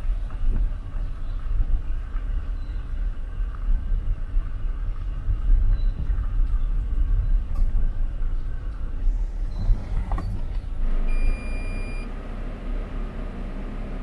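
Car moving slowly over a rough lane, a steady low rumble of tyres and engine heard from inside the car. About eleven seconds in, a short high beep sounds for about a second.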